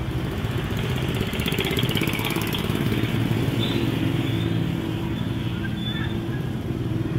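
Motorcycle engine running steadily, a continuous low pulsing putter.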